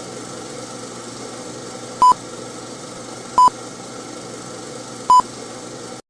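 Three short electronic beeps, all on the same pitch and irregularly spaced, over a steady hiss that starts and stops abruptly.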